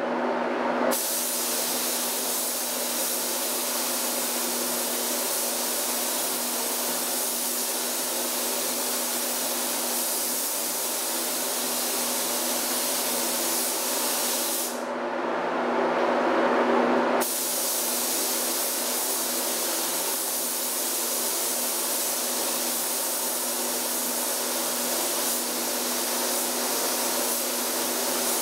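Compressed-air paint spray gun hissing steadily while spraying, with a steady low hum underneath. The spray cuts off briefly at the start and again for about two seconds about 15 seconds in, as the trigger is let go.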